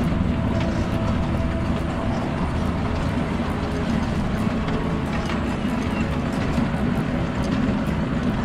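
Miniature ride-on train running along its narrow track, a steady low rumble of the wheels and running gear heard from on board.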